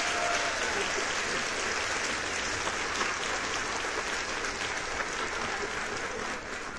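A crowd applauding, a steady wash of clapping that eases a little near the end.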